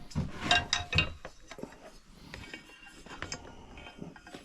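Small metal parts and hand tools clinking and rattling: a few sharp, ringing clinks in the first second, then lighter scattered clicks.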